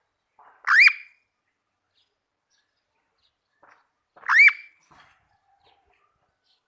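Indian ringneck parakeet giving two loud calls about three and a half seconds apart, each a short note that rises and falls in pitch.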